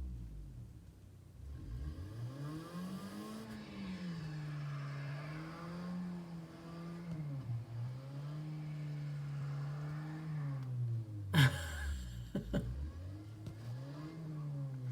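Car engine revving up and falling back again and again as the car, stuck in deep snow, tries to drive out. A single sharp knock about eleven seconds in is the loudest sound.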